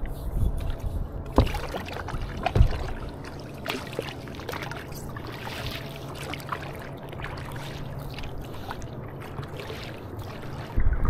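Double-bladed paddles dipping and splashing in lake water as people paddle seated on inflatable paddleboards, with water lapping around the boards. The sharpest splashes come in the first few seconds, then the paddling goes on more evenly.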